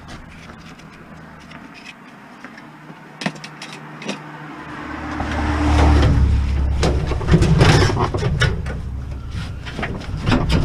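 A road vehicle's engine rumble swells up about five seconds in and stays loud, with a few sharp clicks and knocks before and over it.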